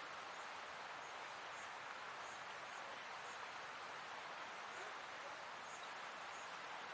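Faint, steady open-air background hiss with no distinct events, and faint high chirps recurring every second or so.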